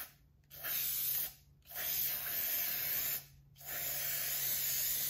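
Aerosol can of spray contact cement hissing in three bursts of a second or more each, with short breaks between.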